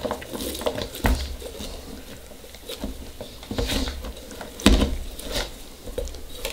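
Shredded cabbage slaw being pushed by hand into a glass mason jar: scratchy rustling and scraping of the vegetables against the glass, with two dull knocks, about a second in and again near five seconds in.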